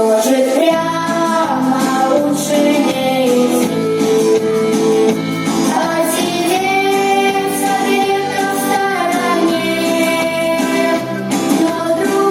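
A vocal group of female voices singing a song with instrumental accompaniment, holding long sustained notes.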